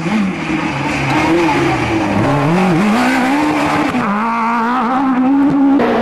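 Rally car engine revving hard, its pitch climbing and dropping repeatedly as the driver changes gear and lifts off.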